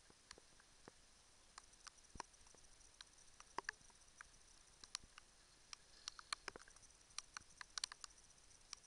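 Near silence, broken by faint clicks and ticks at irregular intervals.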